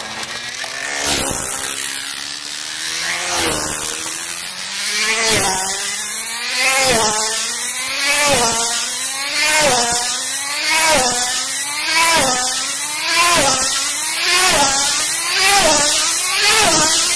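Tethered model race car's small engine whining around a circular track, dropping in pitch each time it sweeps past. The passes come faster and louder as the car builds speed to about 200 mph.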